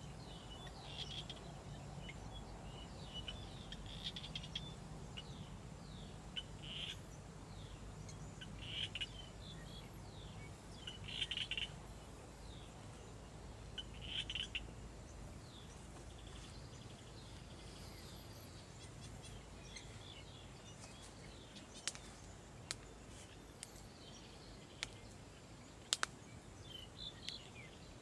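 Faint open-country ambience with birds giving short high-pitched chirping calls every two or three seconds, over a low hum that fades out about halfway through. A few sharp clicks come in the second half.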